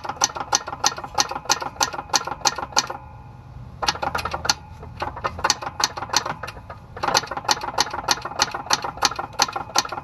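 Rapid metallic tinking, about five ticks a second in three runs with short pauses, from the mag-side cylinder and crankcase of a 1995 Arctic Cat ZR 700 two-stroke engine on that cylinder's compression stroke. The other cylinder does not make it, and the owner takes it for a sign that the crankshaft needs rebuilding.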